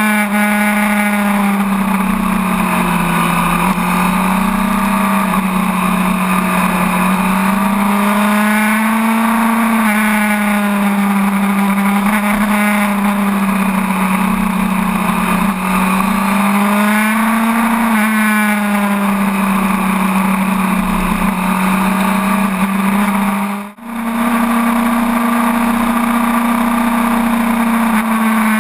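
Onboard sound of a sport bike's inline-four engine running under load through a string of corners, its note rising and falling gently as the rider rolls the throttle on and off, over steady wind rush. About 24 s in the sound briefly drops away before returning.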